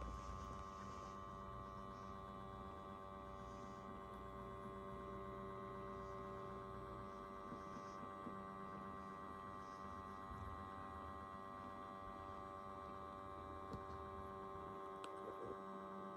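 Faint, steady electrical hum made of several steady tones, with no speech or music.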